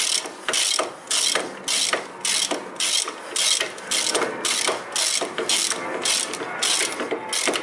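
Socket ratchet wrench clicking as it is swung back and forth in quick strokes, about three a second, running in the upper brake caliper bracket bolt on a Toyota Corolla's front brake.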